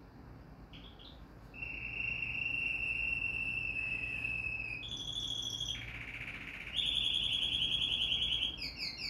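A small songbird singing: a few faint short notes, then from about a second and a half in a long steady high trill, followed by several more held trills at different pitches, and a quick run of falling chirps near the end.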